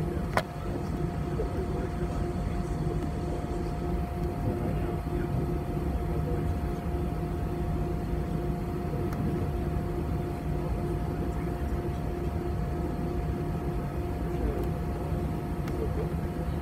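Airbus A320 cabin noise from a seat over the wing: the jet engines run steadily at low taxi power, a constant hum and rumble with a held drone on top, not yet spooling up for the takeoff roll. A single click sounds about half a second in.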